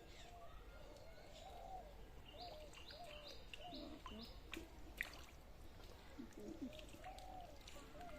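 Faint bird calls: a run of five short high notes repeated about twice a second, over lower, arching calls.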